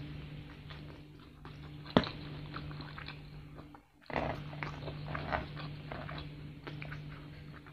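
Close-miked biting and chewing of crispy fried chicken coated in Samyang hot sauce, with crackly crunching mouth sounds and one sharp click about two seconds in. A steady low hum runs underneath.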